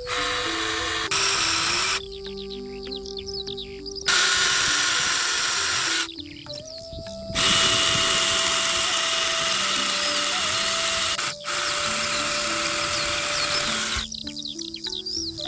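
A power tool runs in three long bursts of steady, loud, hissing noise, switched off briefly between them.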